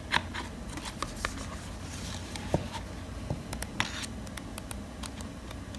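Hands handling a K-pop album and its packaging: scattered light clicks, taps and short paper or plastic rustles and scrapes.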